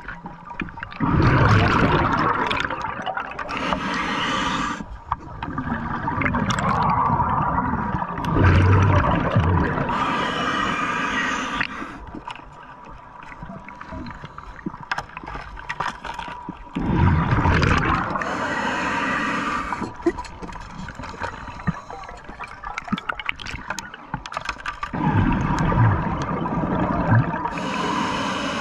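Scuba diver breathing through a regulator underwater: about four breaths, each an inhale through the regulator followed by a gurgling rush of exhaled bubbles. A faint steady tone runs underneath.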